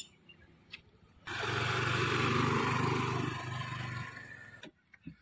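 Motor scooter's small engine running as the scooter rides off, starting suddenly about a second in and cutting off near the end.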